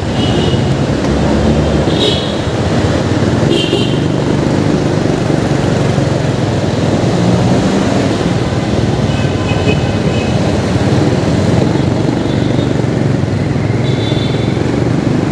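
Steady engine and road noise from a vehicle moving through city traffic, with a few faint high tones now and then.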